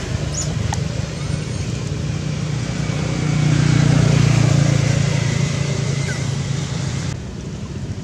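Low engine hum of a passing motor vehicle, swelling to its loudest in the middle and fading, over steady outdoor background noise.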